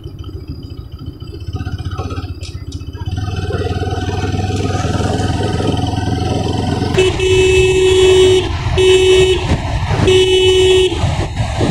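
Motorcycle engine running at riding speed, then a vehicle horn sounds three times in quick succession in the second half, the first blast the longest.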